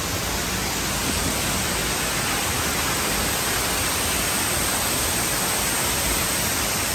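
Steady, even rushing noise of a waterfall.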